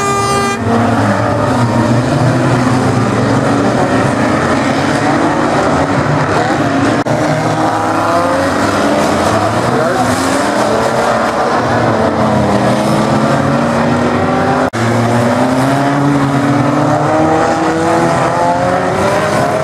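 Several unlimited banger-racing cars' engines running and revving hard together on a wet oval track, their pitch rising and falling as they accelerate and pass.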